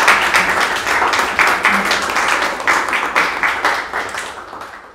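Applause from a small audience of a dozen or so people, a dense run of hand claps that fades out near the end.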